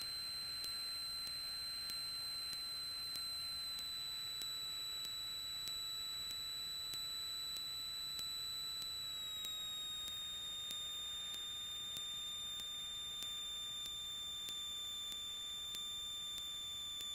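Steady high-pitched electrical whine in a Cessna 172RG's intercom audio feed, its pitch stepping down slightly about ten seconds in, as engine-driven electrical noise does when power comes back on final approach. Faint regular ticking runs under it.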